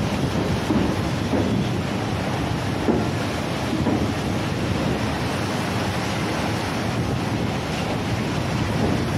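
Choppy sea water churning and sloshing steadily, with wind buffeting the microphone.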